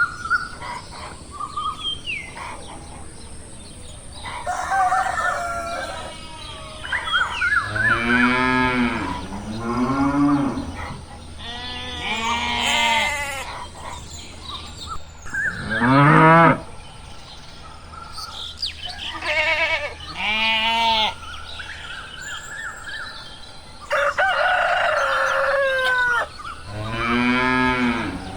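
Cows mooing: a string of about seven long, drawn-out calls one after another, with thin bird chirps in the first couple of seconds.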